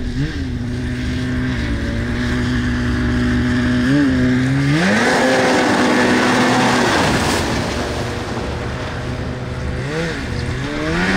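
Polaris snowmobile engine revving hard as the sled skims across open water. Its pitch climbs about four seconds in and holds high under the hiss of water spray from the track. It eases off, then revs up again near the end.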